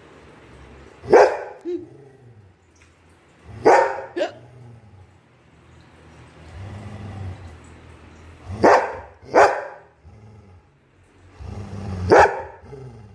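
Golden retriever giving about six short, sharp barks, some in quick pairs, with a low growl rumbling between them: the dog guarding its towel.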